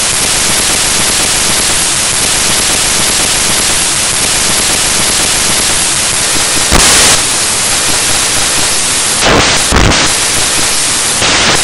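Loud, steady static hiss from a glitch in the lecture recording, starting and stopping abruptly, with brief harsher flares about seven seconds in and again around nine to ten seconds.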